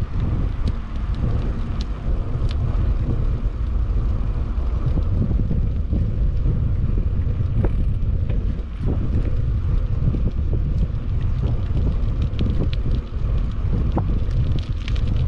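Wind buffeting the microphone of a bicycle-mounted camera while riding, a steady low rumble with scattered light ticks and rattles.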